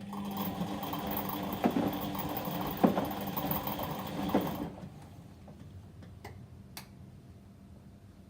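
Whirlpool washing machine on a 30° delicate cycle: the drum motor turns the drum for about four and a half seconds, with three dull thumps from the load, then stops. Two short clicks follow.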